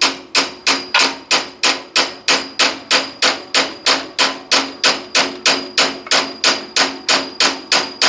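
Steady hammer blows, about three a second, driving a steel rod in a Brunswick A2 pinsetter's turret with a punch; each strike gives a ringing metallic tap.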